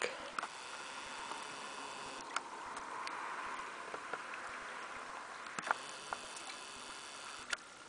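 A shoal of young saithe (sillocks) breaking the sea surface: scattered tiny plips and splashes like raindrops landing on water, over a steady wash.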